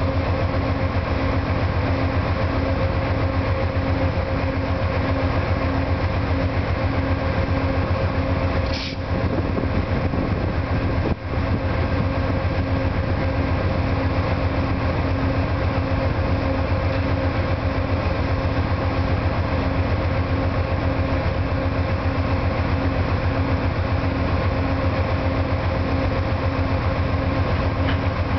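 Two Amtrak GE P42DC locomotives' V16 diesel engines idling with the train stopped: a steady low rumble with a faint hum over it that pulses in an even rhythm. A single click comes about eleven seconds in.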